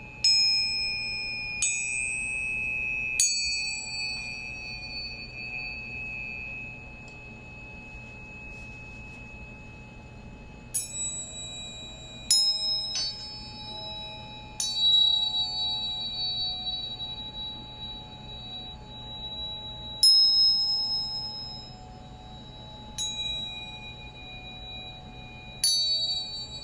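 Small metal bells or chimes struck one at a time, about ten strikes at uneven intervals. Each rings on in high, bright tones that overlap and slowly fade, used as overtone instruments for a meditation.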